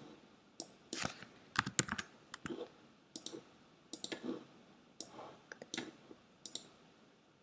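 A dozen or so irregular, sharp clicks of a computer mouse and keyboard keys, some in quick clusters, as keyframes are copied and moved in animation software.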